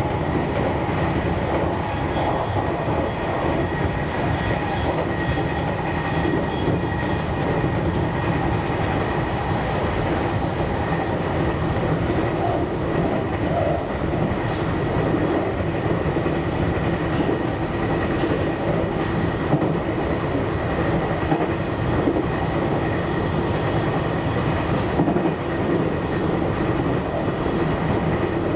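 JR Kyushu 813 series electric train running steadily along the track, heard from behind the driver's cab: continuous running noise of wheels on rail, with a faint steady high whine.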